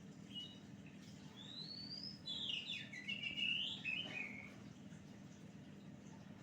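Oriental magpie-robin singing: a brief chirp, then a rising whistle and a quick run of varied notes about two to four seconds in. A steady low hum runs underneath.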